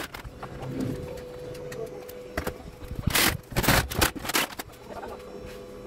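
Scrap circuit boards clattering and scraping against each other as they are shifted by hand in a pile, with a few scattered clicks and the loudest scrapes a little past the middle.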